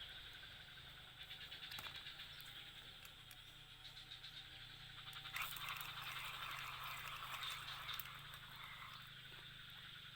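A steady chorus of calling animals, a dense fine pulsing buzz that swells for a few seconds around the middle, over a low steady hum.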